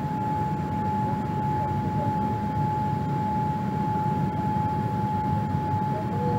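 Cabin noise inside a Boeing 787-8 in its climb: a steady low rumble from the Rolls-Royce Trent 1000 engines and the airflow, with one steady high whine above it.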